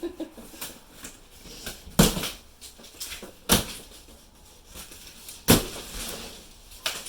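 Sharp knocks and thumps with light rustling between, three loud ones about two seconds apart, from the grill's cardboard shipping box and packing being handled.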